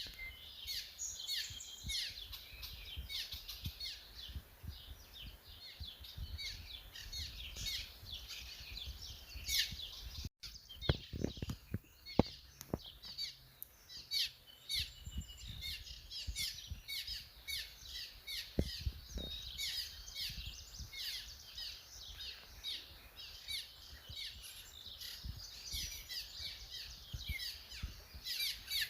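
Several birds chirping and singing together as a steady chorus, with a few low knocks from about eleven to twelve seconds in and again near nineteen seconds.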